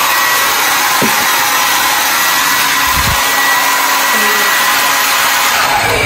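Conair Cord-Keeper 1875-watt travel hair dryer running: a steady rush of blown air with a faint high whine.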